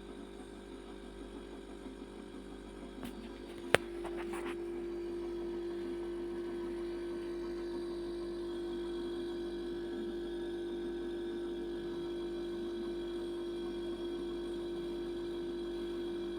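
Samsung refrigerator compressor under test: a sharp click nearly four seconds in, then the compressor runs with a steady, louder hum.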